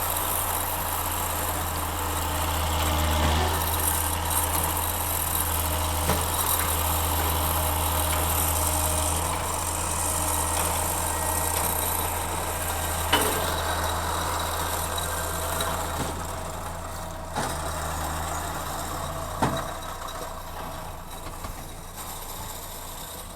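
Tractor engine running steadily as it works a small conventional square baler, with a few sharp knocks along the way. It grows quieter toward the end.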